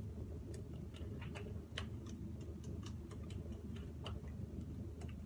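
Fingertips and palms pressing and patting liquid foundation into facial skin, giving faint, irregular light taps and sticky clicks, several a second, over a low steady hum.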